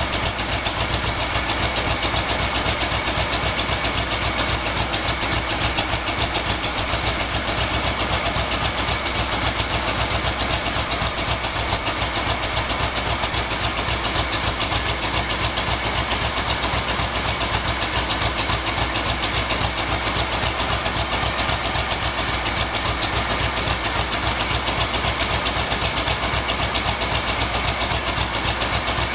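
Ford 351M V8 idling steadily while still cold and warming up, running on a newly installed carburetor.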